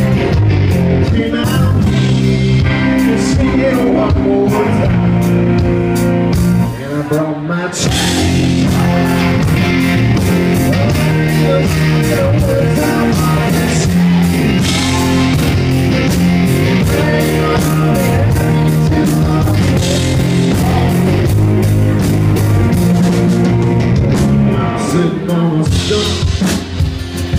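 Live country-rock band playing loud: electric guitars, bass and drum kit, with a short drop in the band's level about seven seconds in.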